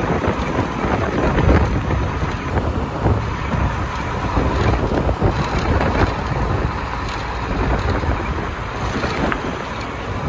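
Wind buffeting the microphone from a moving car's window, with a low rumble of the car and its tyres on the rough road underneath.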